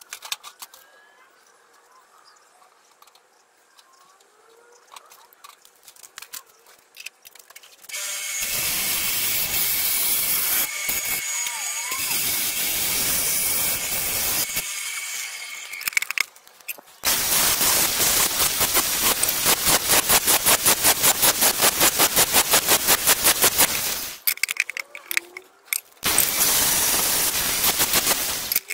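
Angle grinder with a flap wheel grinding the cut metal edges of an engine sump and its plate. It runs in three long bursts of about six, seven and three seconds after a faint opening stretch. The middle burst pulses rapidly as the wheel bites and lifts.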